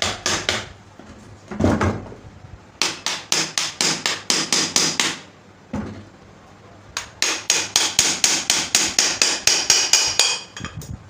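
Hammer tapping on a ceiling fan's motor housing to knock its end plate loose from the body, in runs of quick strikes, the last run about four a second, with a metallic ring after the later blows.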